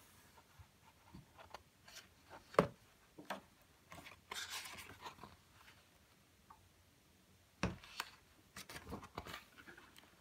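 Pages of a coloring book being turned by hand: soft paper rustling and sliding, with a few sharp taps and knocks as the pages land and the hand presses them flat.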